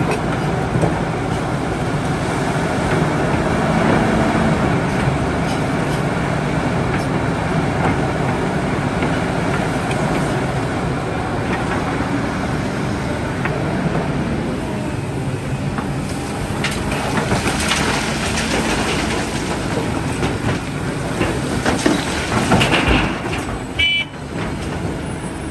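Heavy diesel earthmoving machinery running under load, a dense, steady engine noise with a short break near the end.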